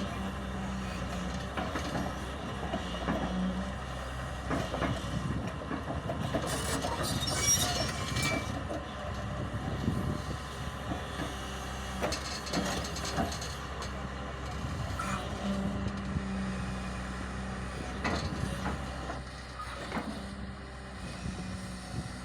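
Excavator working a roller attachment: the diesel engine and hydraulics drone steadily, with a tone that rises and falls away several times. Metal clanks and knocks come through, and a brief squeal about seven seconds in.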